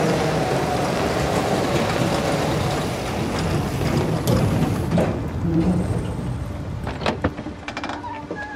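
Vehicle rumbling with metallic rattling and clanking, and a few sharp knocks around five to seven seconds in, fading near the end.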